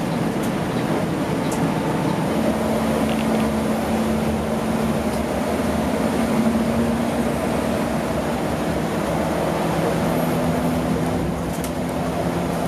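Cabin noise inside a Mercedes-Benz OH 1626 coach cruising on the highway: a steady engine drone over tyre and road rumble, with a second hum tone joining about two seconds in.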